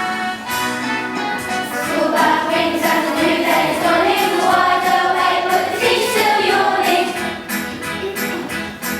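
Song with singing voices over an instrumental backing with a steady beat.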